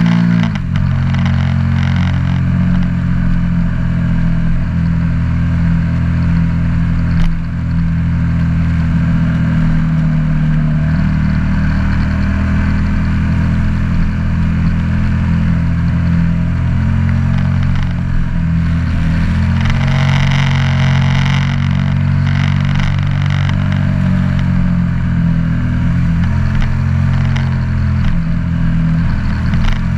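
KTM 1290 Super Duke R's big V-twin engine running steadily under load at road speed, with wind rushing past. A brief dip in the sound comes about seven seconds in.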